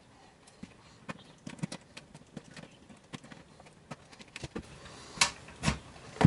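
Small, irregular clicks and taps of a screwdriver working the screws on a DVR recorder's metal case, with two louder clicks about five seconds in.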